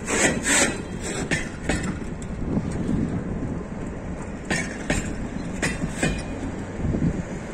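Freight train wagons rolling past close by: a steady low rumble of wheels on rail, with sharp clacks of the wheels that come mostly in pairs, several times over.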